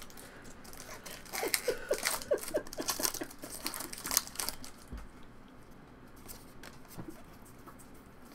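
Foil booster-pack wrappers crinkling and tearing as Pokémon card packs are opened, with cards being handled. A dense run of crackling rustles in the first half gives way to a few faint clicks and rustles.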